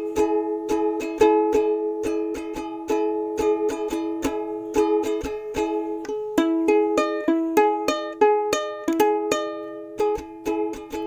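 Background music: quick plucked-string notes over a steady held chord, with a brighter run of climbing notes partway through.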